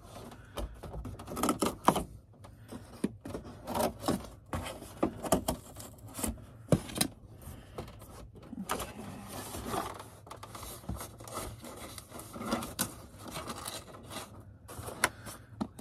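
Cardboard being handled and folded by hand into a box: irregular scrapes, rubs and sharp knocks of cardboard, with no steady rhythm.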